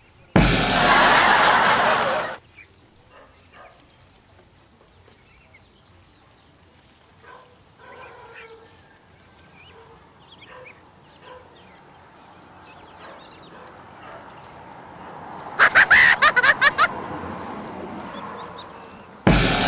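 Ducklings peeping, faint at first, then a quick run of loud calls about three-quarters through, with splashing water. A loud two-second rush of noise comes just after the start, and another begins at the very end.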